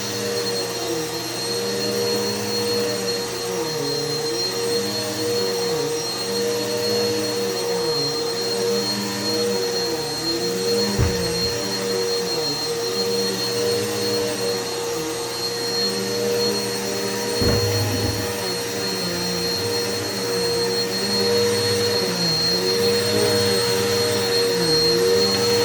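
Vacuum cleaner running steadily, its motor pitch dipping and recovering every second or two, with a couple of brief low bumps along the way.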